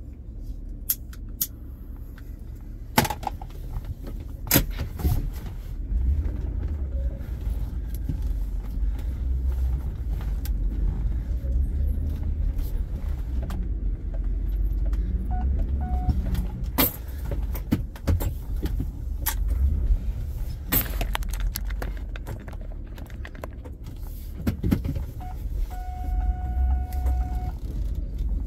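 Car moving along a rough track: a steady low engine and road rumble that grows stronger a few seconds in, with scattered knocks and rattles and keys jangling. A short steady electronic tone sounds near the end.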